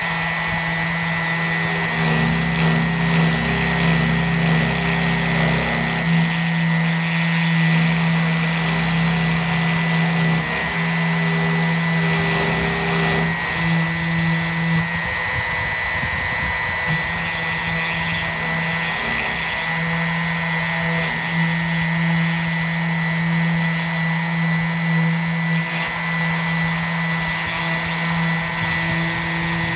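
DeWalt 660 cutout tool turning a single-flute bit at about 10,000 RPM, slotting a deep cut in pine on a CNC machine. There is a steady high motor whine and a low buzz from the cutter in the wood, which drops out briefly a few times. A PID speed controller holds the router's speed steady under this heavy load, which would otherwise bog it down.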